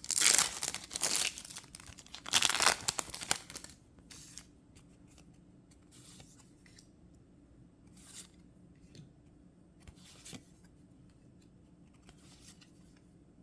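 Foil booster-pack wrapper of a Yu-Gi-Oh card pack being torn open and crinkled, loud for the first three or four seconds; after that only faint, scattered soft rustles and ticks as the cards are handled.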